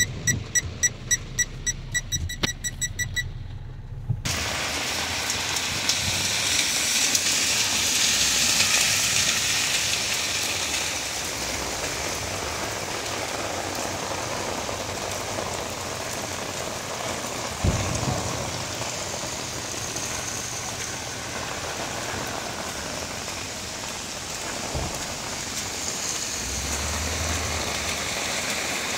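Heavy rain pouring down, heard from inside a car as a steady hiss that comes in suddenly about four seconds in. Before that, a regular ticking at about three a second, and one short thump about midway.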